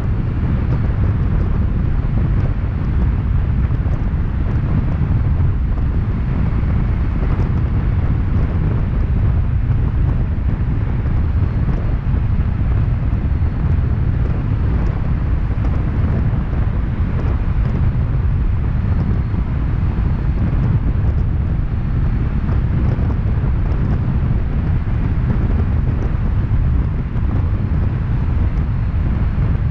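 Steady low rumble of wind buffeting a camera microphone mounted on the outside of a moving car, mixed with the car's road noise, as it drives through a road tunnel.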